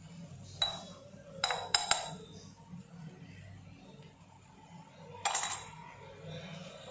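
A metal spoon clinking in short, sharp taps while spice masala is sprinkled from it: one just after the start, a quick run of three about one and a half to two seconds in, and another cluster a little after five seconds.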